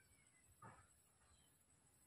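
Near silence, with one brief faint sound about half a second in.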